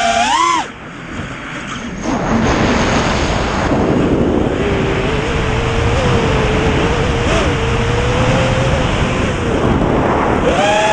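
FPV racing drone's electric motors whining, the pitch gliding up and down with the throttle. A quick rising burst about half a second in cuts off, a fainter wavering whine follows, and a louder whine returns near the end, all over a steady rushing noise.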